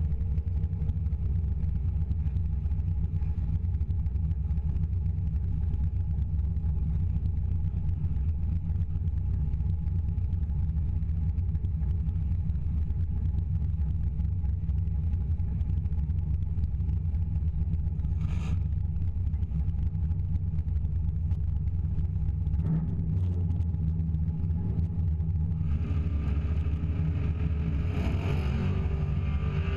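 Deep, steady rumble of car engines idling. The sound grows fuller about four seconds before the end, and an engine starts to rev up right at the end.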